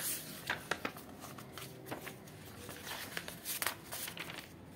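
Paper pages of a book being flipped through rapidly by hand: a series of quick papery flicks and rustles.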